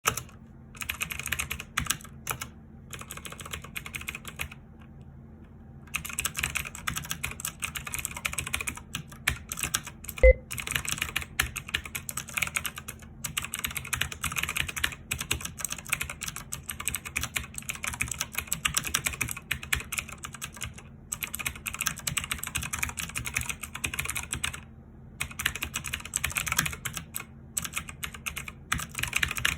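Fast, continuous typing on a Logitech K835 mechanical keyboard: a dense stream of key clicks with a short pause near five seconds and a few brief breaks. One sharp louder knock stands out about ten seconds in.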